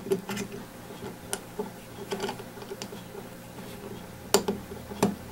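Small metal clicks and taps as a trigger pin is worked through the trigger and the stainless frame of a Ruger Mark IV pistol, with two sharper clicks near the end, over a faint steady hum.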